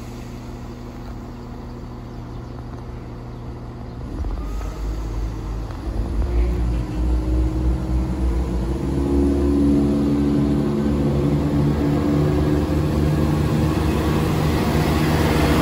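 Class 170 Turbostar diesel multiple unit's underfloor diesel engines running steadily at the platform, then opening up from about four seconds in as the train pulls away, with a deep rumble and engine note that grow louder as the carriages move past.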